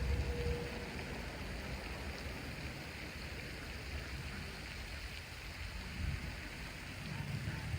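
Steady outdoor rushing hiss, with a low rumble at the very start that eases off and comes back near the end.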